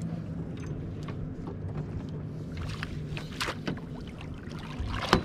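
A boat motor running at a steady low hum. Scattered clicks and knocks come in the middle, and a sharp knock sounds near the end.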